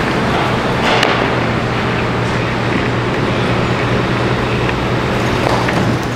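Large tracked excavator's diesel engine running steadily with a constant low hum, with a short sharp noise about a second in and another brief one near the end.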